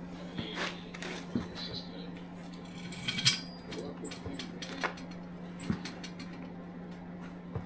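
A steady low hum with scattered light clicks and clinks; one louder, ringing metallic clink about three seconds in.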